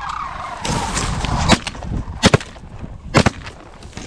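Dry reeds and grass stalks of a field blind rustling and crackling against the microphone as it is moved through them, with sharp cracks about one and a half, two and a quarter and three seconds in.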